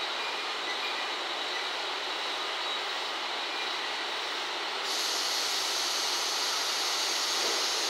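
KiHa 185 series diesel railcar standing at the platform with its engines idling, a steady mechanical hiss and rumble. A few faint brake-squeal tones fade out in the first second, and about five seconds in a high hiss starts suddenly and holds.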